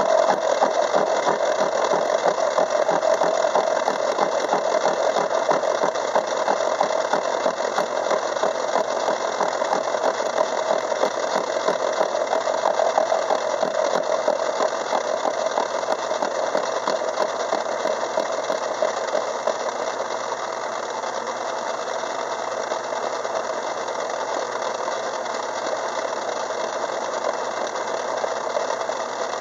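Craftsman 6-inch metal lathe running a 24-pitch gear cutter through a steel gear blank, a steady machining noise with fine rapid chatter. About two-thirds of the way through the chatter stops and the lathe runs on more smoothly and a little quieter, as the cut ends.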